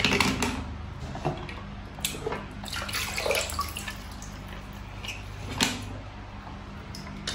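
Water splashing and dripping as wet die-cast toy cars are handled, with irregular clinks and knocks of the metal cars against each other and the pot; the loudest knocks come at the start and about five and a half seconds in.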